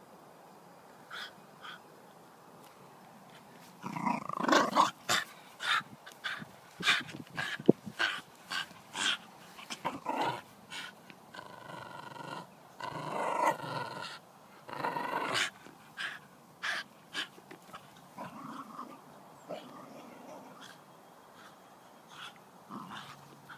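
A dog growling and barking: a quick run of short, sharp sounds mixed with a few longer ones, starting about four seconds in and thinning out after about seventeen seconds.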